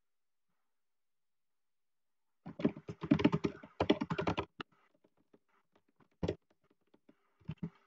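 Typing on a computer keyboard: about two and a half seconds in comes a fast run of key clicks lasting about two seconds, followed by a few scattered keystrokes.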